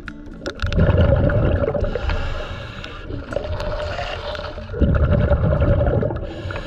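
A scuba diver breathing out through a regulator underwater, heard from an underwater camera: two long, low bursts of bubbles about four seconds apart.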